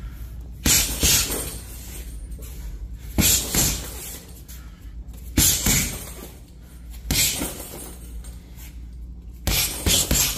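Boxing gloves punching a Ringside heavy bag in quick combinations of two or three sharp smacks. There are five combinations, one about every two seconds.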